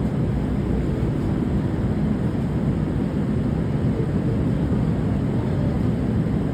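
Steady low rumble and hiss inside a Metro A Line light-rail car.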